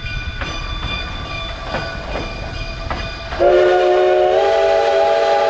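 Cumbres & Toltec K-36 steam locomotive 484's whistle blowing one long blast that starts suddenly about three and a half seconds in, a chord of several tones that steps slightly up in pitch partway through. Before the whistle, quieter train sounds with a few short thumps.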